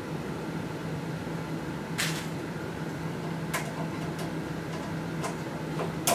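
Light clicks and a short scrape from a screwdriver and a cable clamp being handled against the robot's Z-head while the clamp is fitted, about half a dozen in all, the sharpest at the very end. A steady low hum runs under them.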